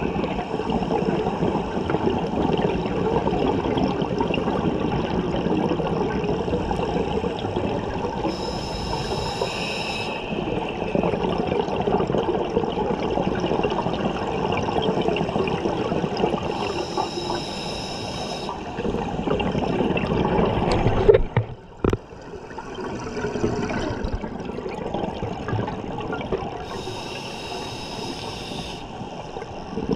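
Scuba regulator breathing: a hissing inhale through the demand valve three times, about nine seconds apart, with the rushing, gurgling sound of exhaled bubbles between them. A little after twenty seconds there is a sharp knock and the sound drops out for about a second.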